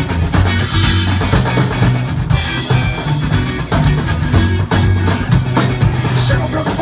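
A live rock band plays an instrumental passage of a dirty, grooving country-blues song. The drum kit leads with a steady beat of bass drum and snare.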